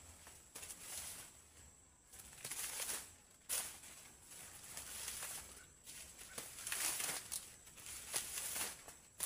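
Dry maize leaves rustling in irregular bursts, with a few sharp cracks, as corn stalks are bent over by hand to leave the ears drying on the stalk.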